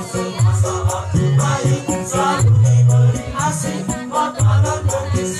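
A boys' choir singing together over a backing music track with a repeating bass line and quick rattling, shaker-like percussion.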